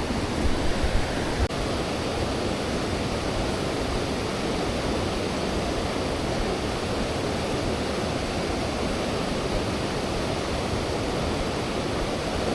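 Steady rush of flowing river water, with a few faint knocks in the first second or two.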